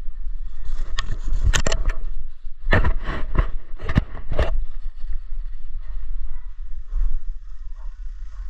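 Footsteps crunching through dry fallen leaves and thin snow on a forest floor, with a run of heavy steps about three to four seconds in, then lighter rustling. A steady low rumble lies under it all.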